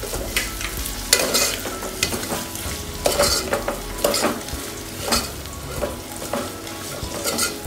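Chopped vegetables sizzling as they fry in hot oil in a pan while being stirred, the utensil scraping and knocking against the pan about once a second.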